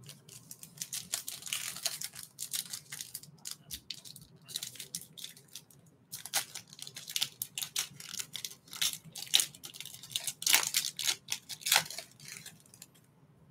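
Foil wrapper of a Panini Select UFC trading-card pack being torn open and crinkled in the hands: a dense run of crackling rustles with a short lull about six seconds in.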